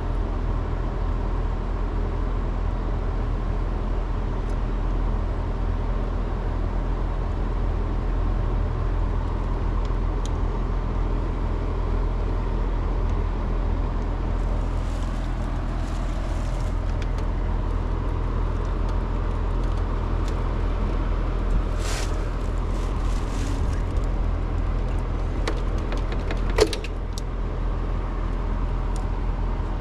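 Steady low mechanical hum throughout, with a few light clicks of handling wires and tools and one sharper metallic click near the end.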